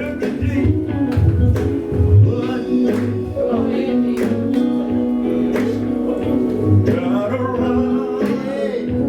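Live gospel band playing with electric guitar, bass and drums, a male voice singing over the music from about a third of the way in.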